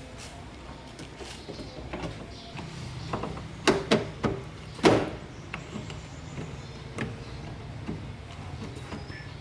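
A handful of sharp knocks and clicks over a steady low hum, the loudest coming in a quick cluster about four to five seconds in.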